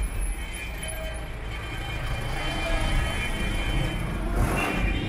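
City street traffic: a steady rumble of engines and tyres, with a vehicle passing close near the end.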